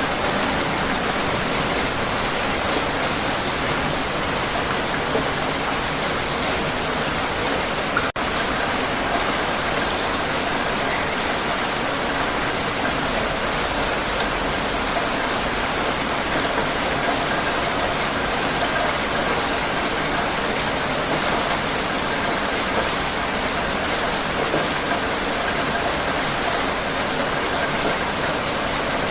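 Heavy rain falling steadily, a dense, even hiss of many drops, with a momentary dropout about eight seconds in.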